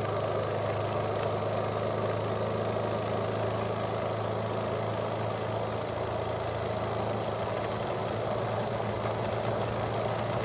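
Small homemade double-acting oscillating-cylinder steam engine running steadily at speed, its exhaust beats merging into a continuous even buzz.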